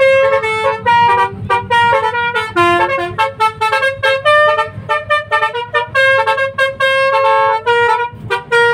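Telolet multi-tone bus horn playing a quick tune of short notes that step up and down in pitch, one after another with brief gaps, over a steady low hum.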